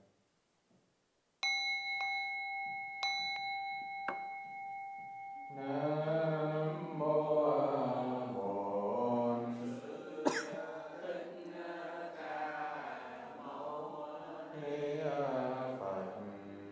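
A Buddhist bowl bell is struck once and rings with a steady, bright tone, with a few short knocks while it sounds. Then slow Buddhist chanting begins and goes on to the end, with one sharp click in the middle.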